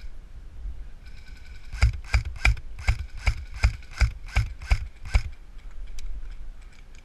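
Airsoft rifle fired in quick single shots, about ten cracks roughly three a second, starting about two seconds in and stopping after about five seconds, over a steady high whine.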